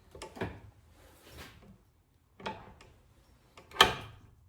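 Tools and parts of an NP242 transfer case being handled during disassembly: a handful of short knocks and clicks with a brief scrape in between, the loudest knock near the end.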